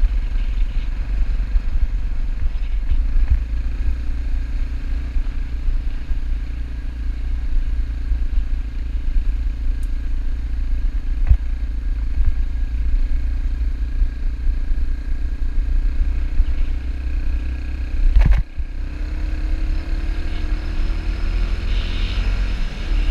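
Dirt bike engine running steadily under way on a gravel road, over heavy low wind and road rumble. A single sharp knock comes about eighteen seconds in, and after it the engine pitch climbs as the bike speeds up.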